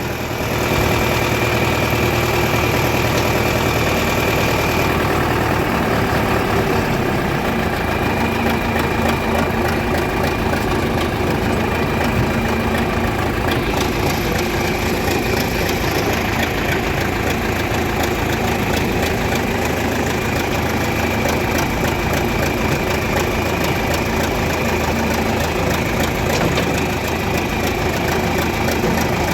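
Large farm machine's diesel engine running at a steady speed.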